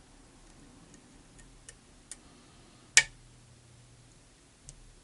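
Small metallic clicks of a lock pick and tension wrench working the pins of a pin-tumbler challenge lock: a few faint ticks, then one sharp, louder click about three seconds in.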